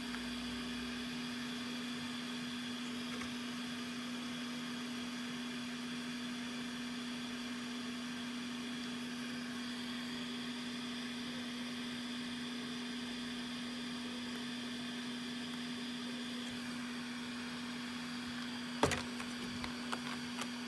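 Steady electrical hum with a strong low tone, from workbench equipment running. A single sharp click comes near the end, followed by a few faint ticks.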